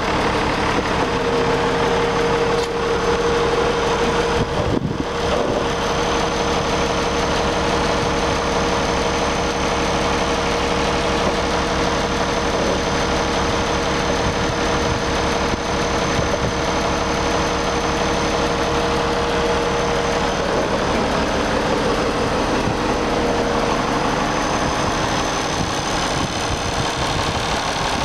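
1974 International 1066 tractor's turbocharged six-cylinder diesel engine running steadily at idle, with a steady whine over it that fades about twenty seconds in.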